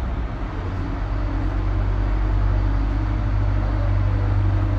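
Charter coach's diesel engine running steadily at low revs, a low hum as the bus creeps forward.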